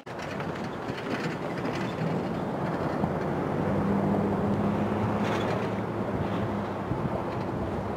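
Diesel freight locomotives running at a distance as they approach slowly, a low steady engine drone with a few faint clicks.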